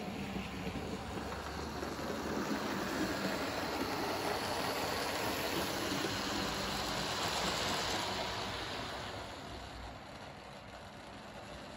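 OO gauge model Princess class steam locomotive and its coaches running on the layout's track: a steady rumble of the small motor and wheels on the rails, growing louder as the train passes close and fading as it runs away.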